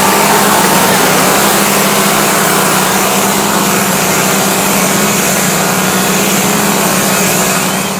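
Small two-stroke chainsaw engines running steadily at a fast, even pitch, over a dense hiss of crowd noise.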